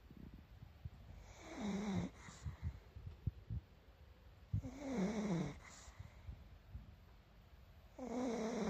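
Pug snoring in its sleep: three snores, each under a second long, about three seconds apart.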